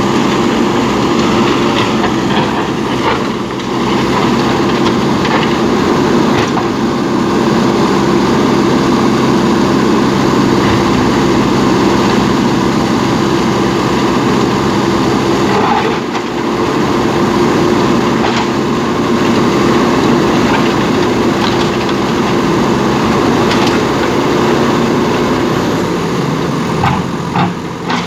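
Diesel engine of a JCB backhoe loader running steadily under work, with scattered short knocks.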